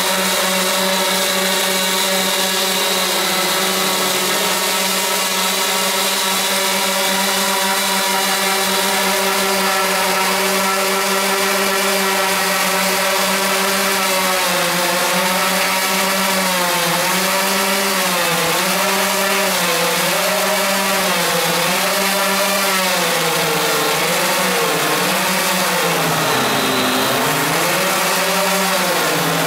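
Four O.S. 46 LA two-stroke glow model-aircraft engines running together, being run in: a steady high drone whose pitch, from about halfway through, rises and falls in slow waves.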